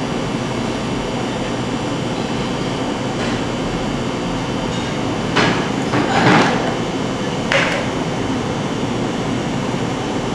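Eggs being cracked and their shells tapped against a bowl while the yolks are separated: a few sharp knocks and cracks, the loudest cluster about halfway through, over a steady background hum.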